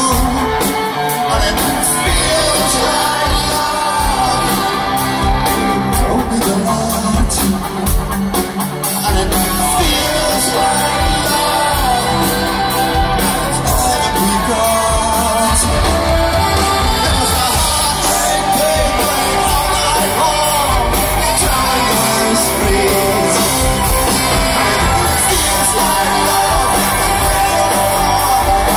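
Live rock band playing at full volume, with sung vocals over bass, keyboards, drums and saxophone, and the crowd shouting along.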